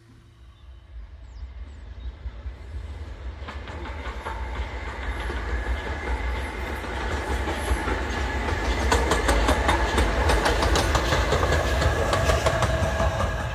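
Peppercorn A2 three-cylinder steam locomotive 60532 'Blue Peter' approaching and passing close by with a passenger train. The sound grows louder over about nine seconds, then stays loud.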